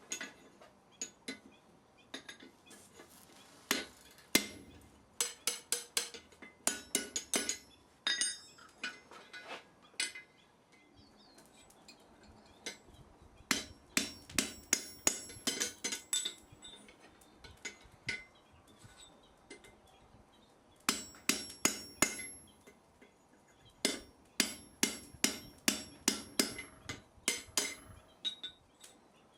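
Blacksmith's hammer striking work on an anvil in several runs of quick blows, about three to four a second, each with a bright metallic ring. The runs are separated by pauses of a few seconds.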